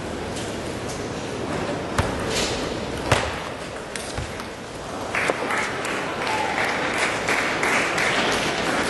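A table tennis rally: a few sharp clicks of the celluloid ball off bat and table, loudest about two and three seconds in, over the murmur of a large hall crowd. From about five seconds in the crowd cheers and applauds as the point ends.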